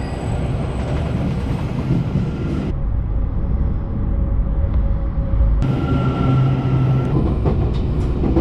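Train running on the rails: a loud, steady rumble with a few faint thin squeals over it. The sound changes abruptly about three seconds in and again past five seconds.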